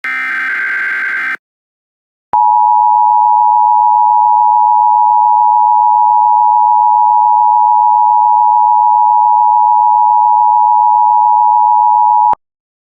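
A harsh, warbling EAS SAME digital header burst lasting just over a second. After a short gap comes the Emergency Alert System attention signal: a steady two-tone 853 and 960 Hz beep held for about ten seconds, which cuts off abruptly. It announces an emergency alert.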